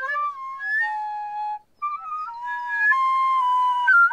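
Recorder played by a beginner: a halting run of wavering notes that slide from pitch to pitch and don't sound right, with a brief break about one and a half seconds in.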